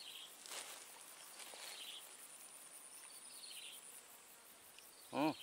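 Faint rural waterside ambience with short, high chirping calls repeating every second or two. A man's voice starts just before the end.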